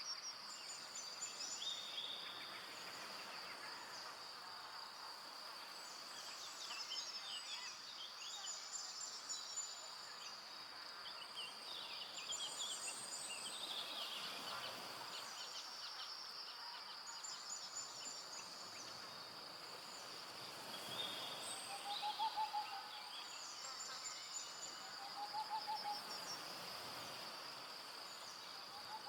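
Forest ambience with a steady, high-pitched insect drone and several birds chirping and trilling throughout. A short hooting call comes twice in the last third.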